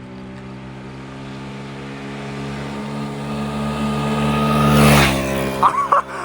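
2007 VIP GY6 scooter's small four-stroke engine running at speed and coming closer, getting steadily louder to a peak about five seconds in, then falling off as it passes.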